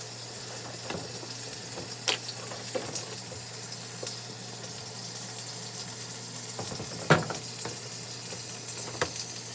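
Water running steadily into a top-loading washing machine's tub as it fills, with a few light knocks and clicks of handling, the loudest about seven seconds in.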